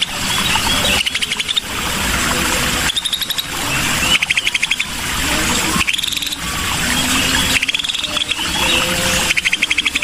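Cucak sisik (scaly-breasted bulbul) song: quick chattering trills repeated about every second or so, alternating with short warbled phrases.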